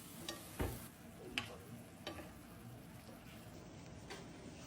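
Quiet cooking sounds: a few light knocks of a utensil against cookware over a faint sizzle of food in a pan.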